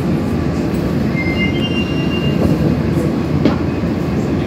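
Tokyo Metro Yurakucho Line subway train heard from inside the car near the door, running with a steady deep rumble as it slows into a station. A brief faint squeal comes about a second in, and a few light clicks follow.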